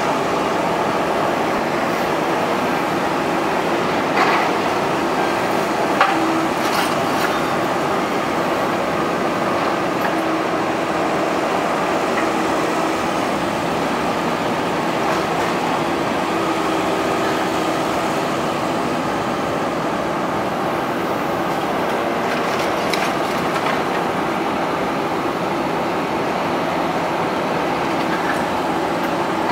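Volvo EC380HR high-reach demolition excavator working, its diesel engine running steadily under load, with a few sharp knocks, the loudest about four and six seconds in.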